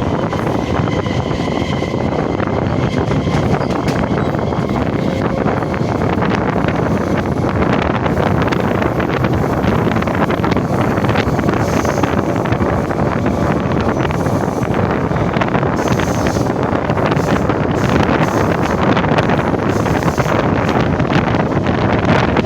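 Local train running past at speed: a steady rushing rumble with fine rapid clatter, and wind buffeting the microphone.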